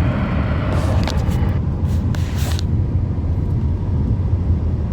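Steady loud low rumble, with short bursts of hiss about one second and two seconds in.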